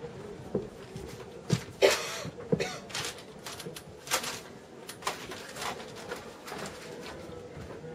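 Scattered knocks and short rustling noises of performers moving about a stage, over a faint steady hum.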